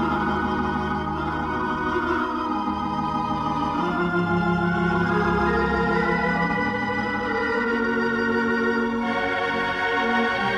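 The 3/10 Hilsdon unit theatre pipe organ playing slow, sustained chords that change every second or two. The Solo-chamber ranks dominate, and the sound is bright with long reverberation from the hard-surfaced auditorium.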